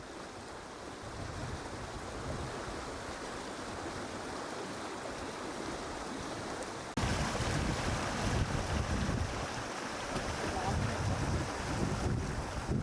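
Steady rush of water from a waterfall and river, with wind buffeting the microphone; about seven seconds in the sound jumps abruptly to a louder, brighter rush.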